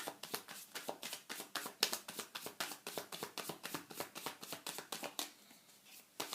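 A deck of tarot cards being shuffled by hand: a quick run of card flicks, about five or six a second, that eases off near the end.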